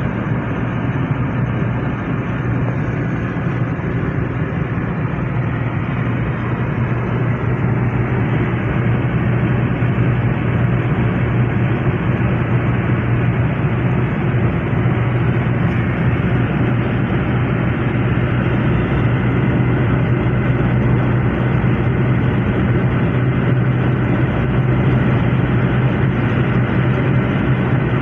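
Toyota Hilux Revo pickup cruising at motorway speed: a steady hum of engine and tyre noise with a low drone, growing slightly louder about a third of the way through.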